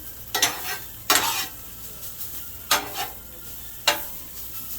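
Diced and sliced onions and serrano peppers sizzling on a Blackstone flat-top griddle as they are stirred together, with a spatula scraping and clacking on the steel about four times.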